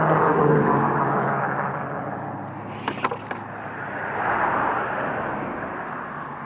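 Road traffic passing: a steady rush that swells and fades as vehicles go by, loudest near the start and again about four and a half seconds in. A few sharp clicks come about three seconds in.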